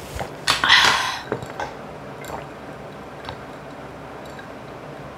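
A person eating clam kalguksu noodle soup close to the microphone: a loud wet slurp about half a second in, then soft chewing with small clicks.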